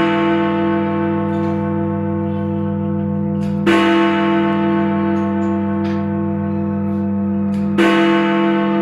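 Big Ben, the great hour bell of the Westminster clock tower, striking the hour: deep, identical strokes about four seconds apart, twice within the span, each with a long ringing hum that carries on under the next.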